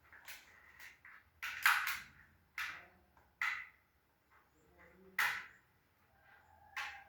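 Handling noise from wiring work: a series of about seven short, scratchy rustles and scrapes at irregular intervals, the loudest about a second and a half in.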